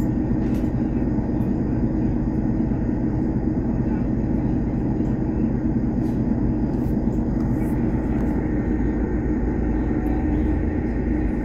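Steady low drone of a city bus's engine and running gear, heard inside the passenger cabin, with faint rattles over it.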